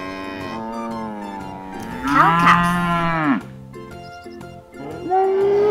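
Cattle mooing: a long moo, then a louder moo that rises and falls in pitch about two seconds in, and another moo starting near the end.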